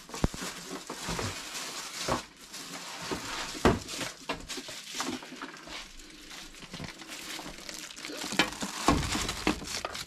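Clear plastic bag wrapped around a coffee machine crinkling and rustling as the machine is lifted out of its box and handled, with scattered knocks. A heavier thump comes near the end as it is set down.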